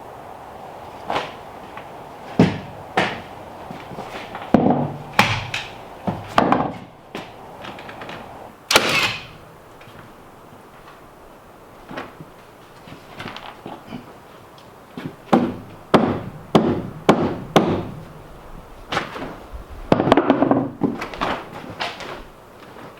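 Irregular wooden knocks and thuds, some in quick runs of blows, with a short scraping rasp about nine seconds in.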